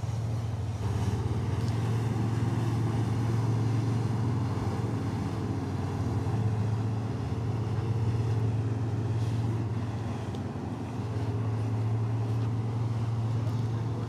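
Outboard engines of a center-console fishing boat running at cruising speed as it passes, a steady low hum.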